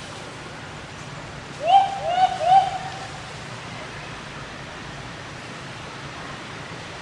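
Three short hoot-like animal calls in quick succession, each a sharp upward swoop that levels off, over a steady outdoor hiss.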